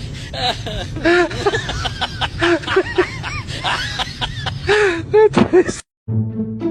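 People laughing and talking, with many short rising-and-falling laughs. The sound cuts off suddenly near the end, and low steady music tones follow.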